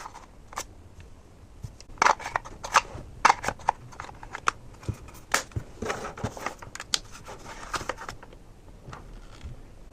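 Plastic battery and charger being handled: a run of small sharp clicks, taps and rattles, busiest from about two seconds in to near the end.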